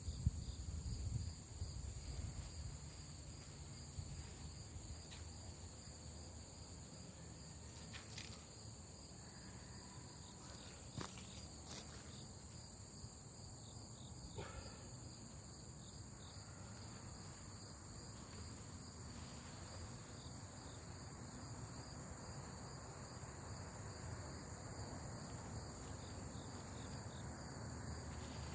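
Steady insect chorus: several high, unbroken trilling bands, with a low rumble underneath. A few faint clicks and a brief rustle near the start.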